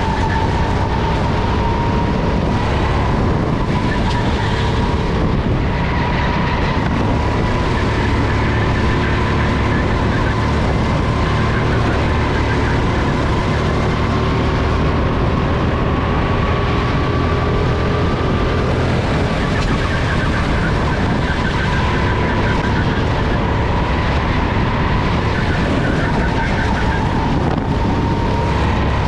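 SODI RT10 rental kart's single-cylinder four-stroke engine running at racing speed from the driver's seat, its pitch rising and falling gently through the corners, over a steady rush of wind on the onboard microphone.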